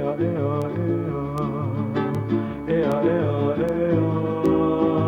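Background music: a singing voice over guitar accompaniment.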